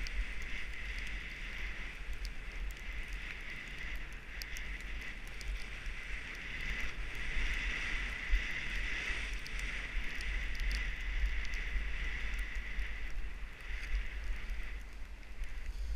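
Skis sliding over snow with a steady hiss that swells and fades, and gusty wind rumbling on the helmet camera's microphone. A few faint clicks are heard.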